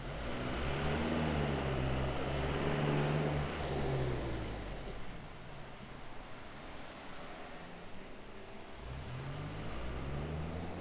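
Street traffic: a motor vehicle's engine passes close by over the first few seconds and fades, then a second vehicle comes near toward the end.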